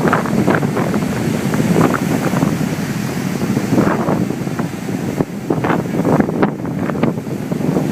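Strong onshore wind buffeting a phone's microphone in loud, irregular crackling gusts, with the rush of choppy wind-driven surf beneath.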